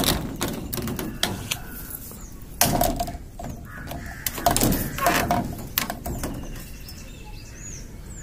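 Crows cawing a few times, with scattered sharp clicks and knocks between the calls.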